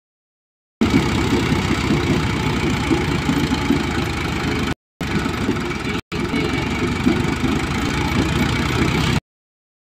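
Dashmesh thresher driven by an Arjun tractor, running steadily while threshing soybean plants: a dense, low engine-and-machine churn. It cuts in abruptly about a second in, drops out briefly twice, and stops abruptly near the end.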